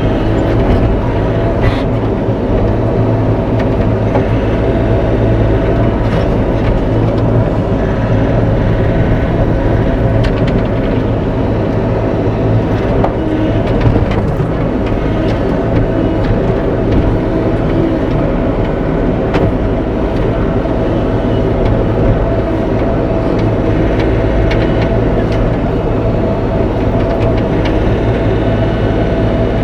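Bobcat E42 mini excavator's diesel engine running steadily under working load, with a few scattered knocks and snaps as trees and brush are worked loose.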